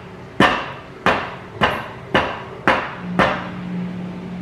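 A spatula smacking pancakes flat in a frying pan: six sharp strikes about half a second apart. A steady low hum starts about three seconds in.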